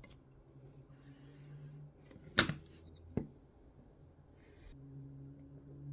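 Pliers snipping through a thin 0.2 mm steel feeler gauge: one sharp snip about two and a half seconds in, then a lighter click. A low steady hum runs underneath for part of the time.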